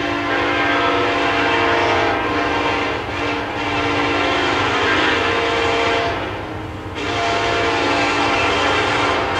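Diesel freight locomotive's air horn sounding a chord of several tones in long blasts with short breaks between them, as the train approaches out of sight.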